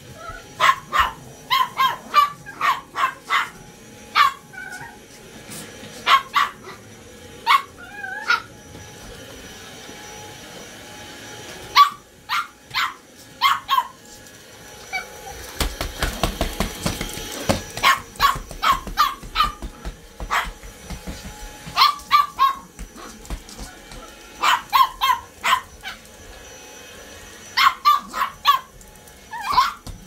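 Small dog barking sharply in quick volleys at a running cordless stick vacuum, whose steady whine runs faintly underneath. Around the middle the barks pause for a few seconds, then a louder rushing noise comes as the dog grabs at the vacuum head.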